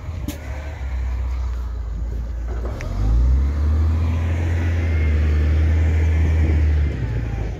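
A low rumble, heavier from about three seconds in until shortly before the end.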